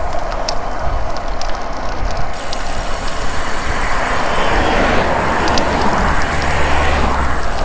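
Wind rushing over the microphone and tyre noise of a road bike being ridden along a road. A louder rushing noise swells from about three seconds in and fades near the end.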